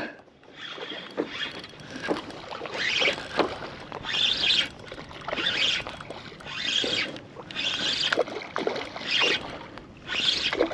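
Water splashing and sloshing around a fishing kayak in short swishes, about one a second.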